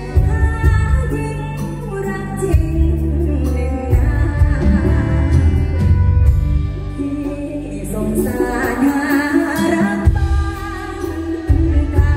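A woman singing a slow Thai luk thung song live into a microphone, backed by a live band with a heavy bass and drums.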